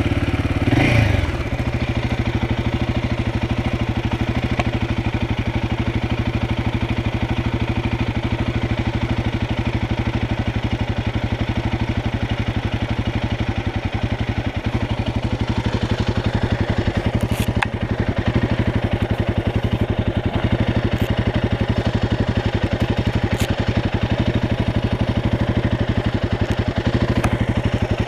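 Royal Enfield Guerrilla 450's single-cylinder engine, just started, revs up briefly about a second in and then settles to a steady idle.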